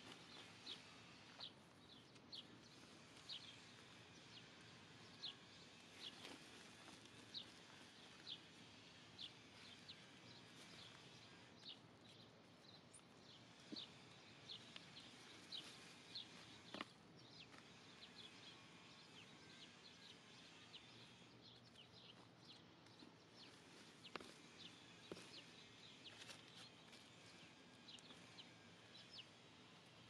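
Faint bird chirping: short high chirps repeating about once a second, with a few soft knocks as food scraps and paper tumble into the compost bin.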